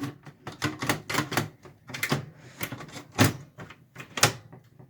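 Irregular clicks and knocks of a power supply unit's metal housing being pushed and jiggled into a Dell Optiplex 790 case against its sliding bracket. Two louder knocks come in the second half.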